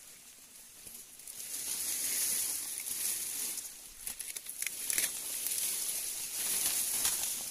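Leaves and dry stems rustling and crackling as someone pushes through dense undergrowth, louder from about a second in, with a few sharp crackles.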